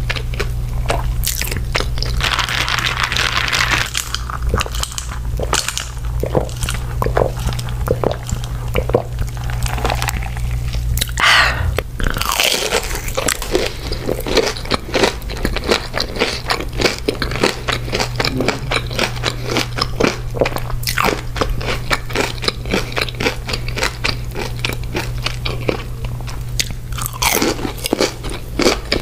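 Close-miked crunching and chewing of crispy breaded fried chicken wings: many short, sharp crunches throughout, over a steady low hum.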